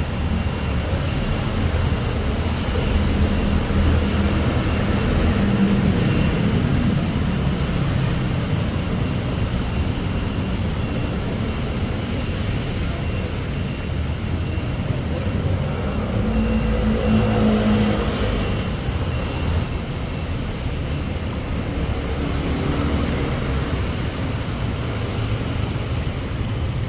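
Stormy wind and rain: a steady low rumble with a hiss over it, swelling twice.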